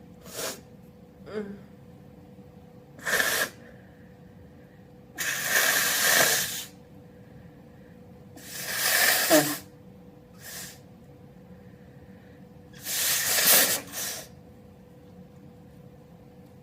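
A person sneezing loudly, open and wet, with hissing breaths: four big bursts and a few small ones in between.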